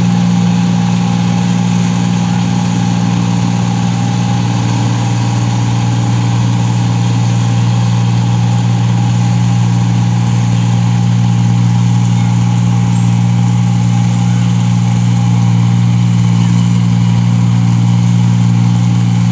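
A paddy-field rice harvesting machine's engine running steadily under load: a loud, even drone with a steady higher whine above it, unchanging throughout.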